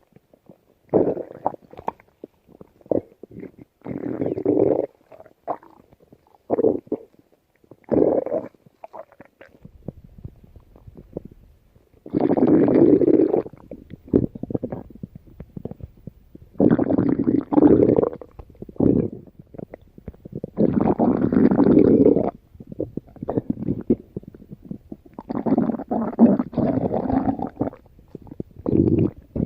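Stomach growling and gurgling in irregular bursts. Short rumbles of under a second come first, then longer, louder ones of one to two seconds.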